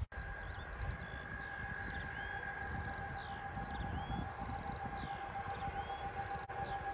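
Steady high-pitched whine from a distant approaching train, a DB Class 152 electric locomotive hauling a car-carrier train. Wind buffets the microphone, and small birds chirp and trill throughout.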